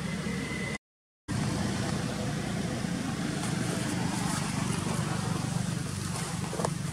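Steady low outdoor background rumble, broken by a sudden half-second drop to silence about a second in.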